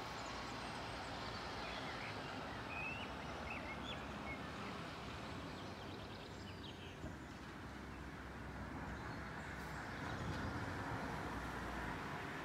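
Steady low outdoor background rumble, with a few short bird chirps in the first few seconds and again around the middle.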